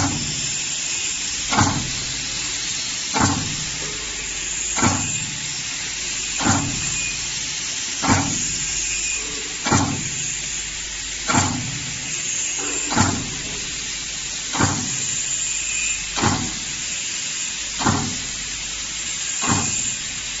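Stamping cutter of a dough-sheet cutting machine coming down on the conveyor in a steady cycle, one knock about every 1.6 seconds. A steady machine hiss runs underneath.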